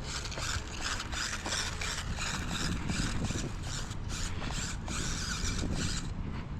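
Losi Micro-B 1/24-scale RC car's small brushed motor and gear drivetrain whirring in a quick, ratchety train of pulses as the car is driven over rocks; it stops about six seconds in.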